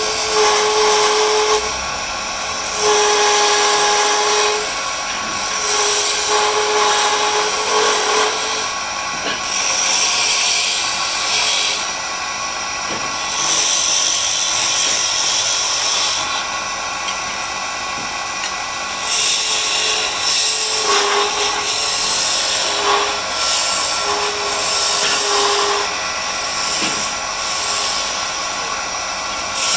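Wood lathe turning a wooden spindle while a hand-held chisel cuts into it in repeated passes of a second or two. Each pass is a loud scraping whine over the steady running of the machine.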